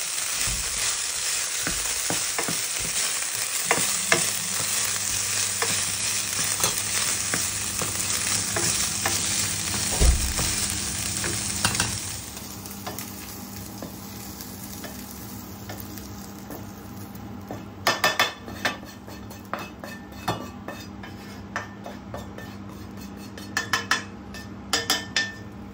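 Turkey breast strips with garlic and ginger sizzling in hot oil in a frying pan as they are browned, a wooden spoon scraping and tapping through them. About halfway through the sizzle drops away to a quieter low steady hum, and near the end the wooden spoon knocks and scrapes against the pan while the meat is scraped out into a bowl.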